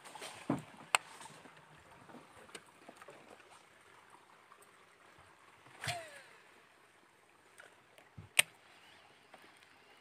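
A few sharp knocks and bumps on a small boat's hull as the anglers move about and handle rods and gear. Two come in the first second, one near six seconds with a brief falling squeak, and the loudest about 8.5 seconds in.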